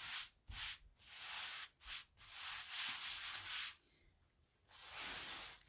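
Sticky adhesive stencil transfer rubbed and pressed against a fuzzing cloth in several hissing strokes with short pauses between them, picking up fuzz so that it is less tacky.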